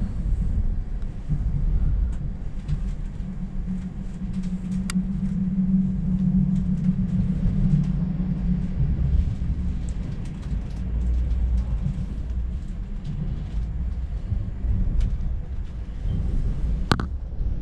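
Electric regional passenger train running along the line, heard from inside the carriage: a steady low rumble of wheels on the track that grows louder for a few seconds about a quarter of the way in. A few light clicks come through, with one sharp click near the end.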